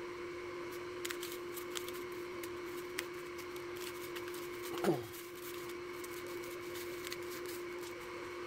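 Hands pressing chicken tenders into a dry crumb coating mix on foam plates: faint crackles and rustles over a steady background hum. About five seconds in there is a short squeak that falls in pitch.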